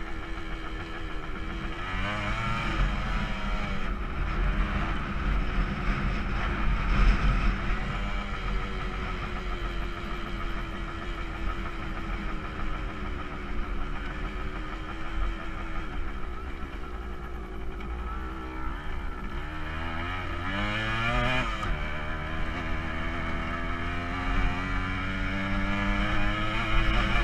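Kawasaki KE100's two-stroke single-cylinder engine running as the bike is ridden off-road. Its pitch rises and falls with the throttle, revving up sharply about two seconds in and again about twenty seconds in.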